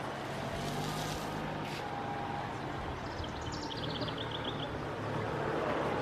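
An engine running steadily with a low hum, and a bird's quick trill of falling high notes about three seconds in.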